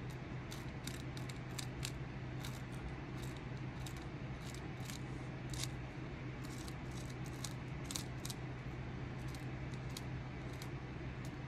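Hand carving tool scraping and cutting into a wooden walking stick, in short dry strokes about two a second at irregular spacing, over a steady low hum.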